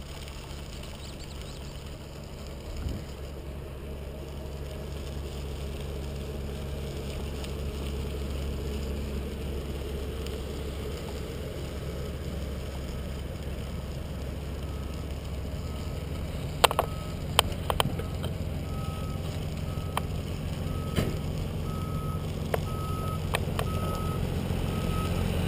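Heavy construction machinery running, its low engine hum growing louder. From about halfway through a reversing alarm beeps steadily and repeatedly, and a cluster of sharp metal clanks comes a few seconds later.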